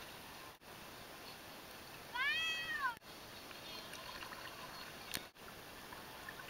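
A single high-pitched call, rising and then falling in pitch, lasting under a second, about two seconds in, over a faint steady outdoor background.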